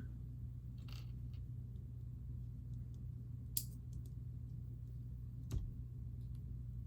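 A few sparse, faint clicks of plastic Lego pieces being handled and pressed together, the sharpest one about five and a half seconds in, over a low steady hum.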